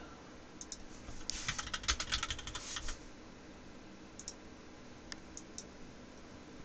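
Computer keyboard typing: a quick run of keystrokes lasting about a second and a half, then a few scattered single key presses.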